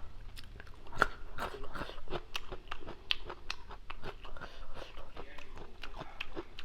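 Close-up chewing and crunching of papaya salad with noodles, a quick run of wet, crisp clicks several times a second.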